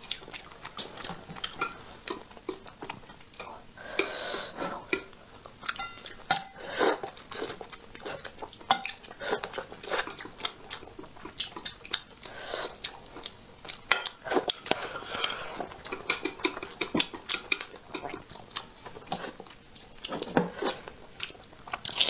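Wooden chopsticks clicking and tapping irregularly against a ceramic bowl while picking through braised fish in sauce, with chewing sounds of eating in between.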